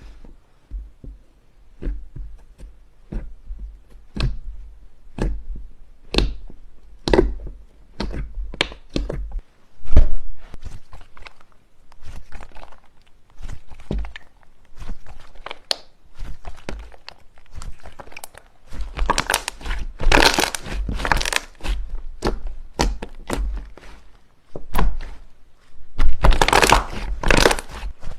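Slime being squeezed and poked by hand, giving a string of sticky clicks and pops, with two denser runs of crackling past the middle and near the end.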